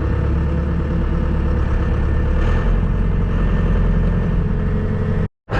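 Diesel tractor engine running shortly after a cold start, a steady low drone that drops in pitch about halfway through. The sound cuts out completely for a moment near the end.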